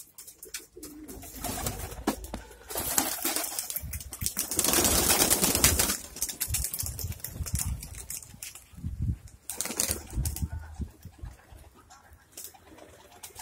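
Domestic pigeons cooing and flapping their wings, with a loud rushing noise for a couple of seconds near the middle.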